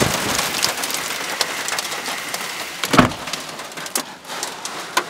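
Hail and heavy rain pelting the car and pavement: a dense patter packed with sharp ticks. A single louder thump comes about three seconds in.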